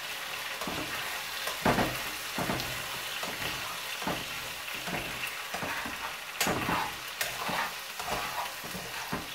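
Chunks of beef sizzling as they brown in hot oil in a frying pan, with metal tongs clinking and scraping against the pan now and then as the pieces are turned.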